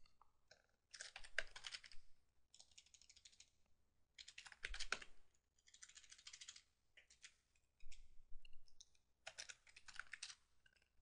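Faint typing on a computer keyboard: about seven short bursts of rapid keystrokes, each under a second long, with brief pauses between them.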